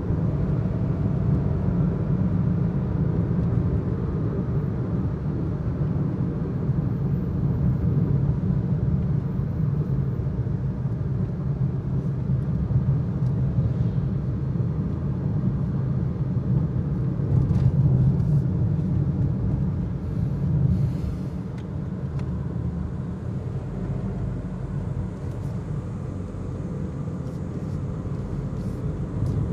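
Road noise inside a moving car's cabin: a steady low rumble of tyres and engine, a little quieter from about two-thirds of the way through.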